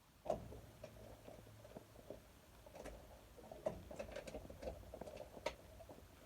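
Irregular clicks and light knocks of hand work on the furnace, starting with a sharp click about a quarter second in, over a faint low hum.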